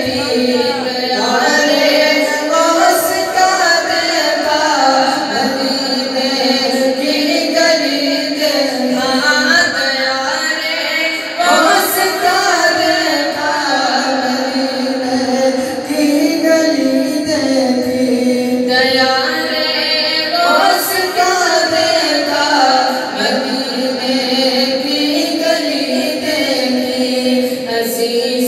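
A man singing an Urdu manqabat, a devotional song in praise of a Sufi saint, in long, ornamented, gliding notes.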